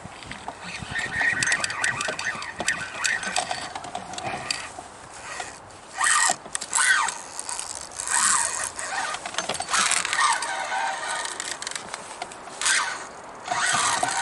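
Fishing rod and reel being handled on a kayak: a run of small clicks and scrapes, with a few louder bursts of noise about six, eight and twelve and a half seconds in.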